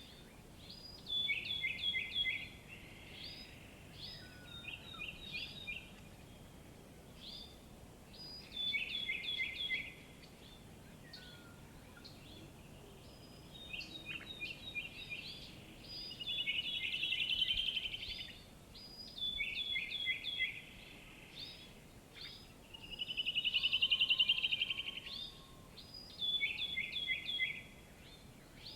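Songbirds singing: short, quickly repeated phrases of high chirping notes, with two longer, louder rapid trills in the second half, over a faint steady outdoor background.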